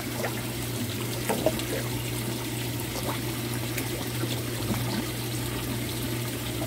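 Water splashing and trickling as it falls from a pipe onto the surface of a fish tank, with many small drips and bubbles, over a steady low hum.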